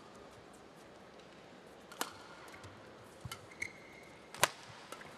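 Badminton court sounds between rallies: shoes squeaking on the court mat and a few light taps, then one sharp racket hit on a shuttlecock, the loudest sound, about four and a half seconds in.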